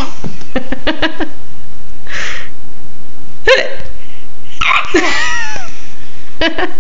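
A young child hiccuping several times, each hiccup a short sudden catch with a quick falling squeak, a second or two apart.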